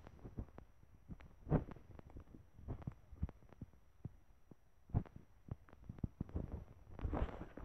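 Soft, irregular thumps and clicks of a phone being handled and moved while filming, with a faint low rumble between them.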